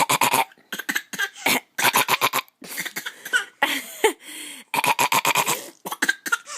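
Fake coughing: short, harsh coughs in quick runs of several at a time, the runs repeating about once a second.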